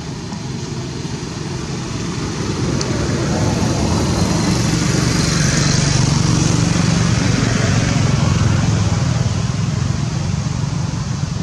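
Motor vehicle running nearby: a steady low rumble with hiss that swells over several seconds and eases off toward the end.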